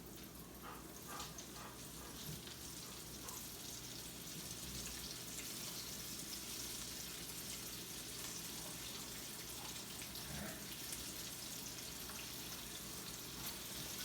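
Floured green tomato cubes frying in hot oil in a cast iron skillet: a steady sizzle that builds over the first few seconds, then holds.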